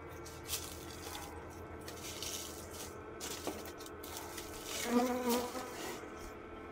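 Overwintered honeybee colony humming inside a wooden hive, a steady low drone that shows the clustered bees are still alive. About five seconds in, one bee buzzes louder close by.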